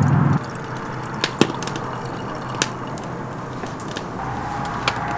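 Fire in a fire pit crackling, with a few sharp pops, the loudest about a second and a half in. A louder low rumble cuts off abruptly within the first half second.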